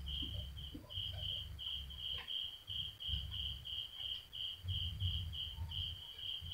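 A high chirp repeating evenly about three times a second, over a low, uneven rumble that swells and fades.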